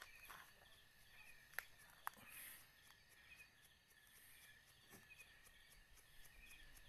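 Faint crickets chirping in a steady night chorus, with two soft clicks about a second and a half and two seconds in.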